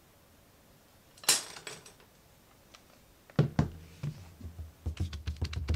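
A cordless drill and loose wooden dowels being handled on a cutting mat: a single sharp click about a second in, then a run of irregular knocks and light clatter that gets busier near the end.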